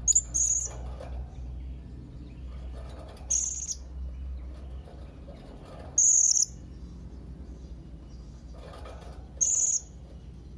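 Young blue-crowned hanging parrot (serindit) giving short, high-pitched calls: two in quick succession at the start, then one about every three seconds.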